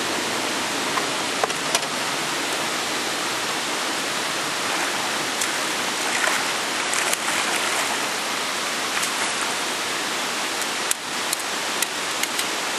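A steady, even rushing hiss, with a few short sharp clicks near the end.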